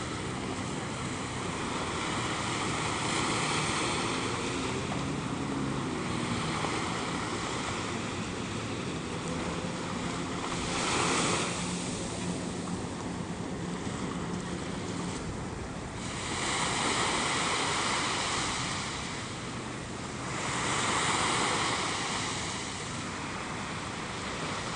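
Sea surf breaking and washing up a sandy beach, a steady rush that swells louder three times. Wind buffets the microphone.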